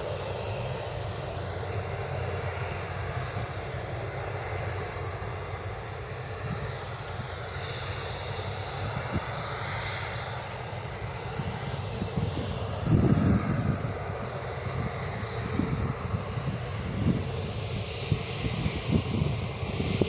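Airliner's jet engines running, a steady roar with a whine gliding in pitch. From about twelve seconds in, wind buffets the microphone in irregular low gusts.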